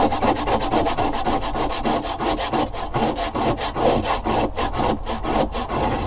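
Whole nutmeg being rubbed rapidly back and forth on a super fine rasp grater: a quick, even rhythm of dry scraping strokes that stops near the end.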